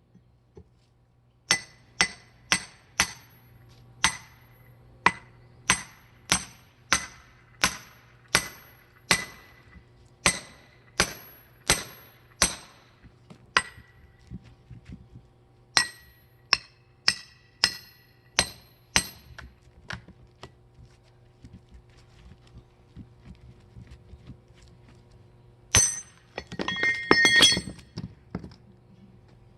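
Repeated sharp metal-on-metal hammer strikes with a ringing tone, about two a second, typical of driving a steel wedge or blade into firewood. A short pause comes after the first run of about eighteen blows, then six more, then a brief jangling metallic clatter near the end.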